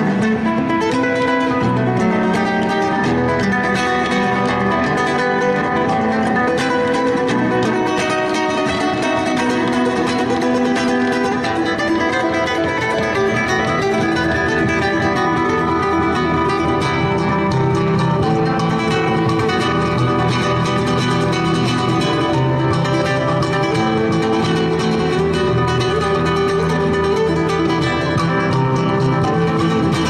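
Acoustic guitar music, plucked and strummed.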